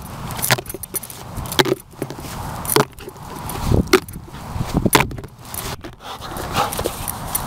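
Irregular knocks, scrapes and rustling close to the microphone as a border collie noses and bumps around the camera in the grass.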